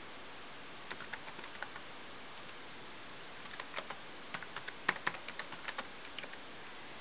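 Keys being typed on a Sony Vaio laptop keyboard: a few quick keystrokes about a second in, then a longer irregular run of clicks in the second half, over a steady hiss.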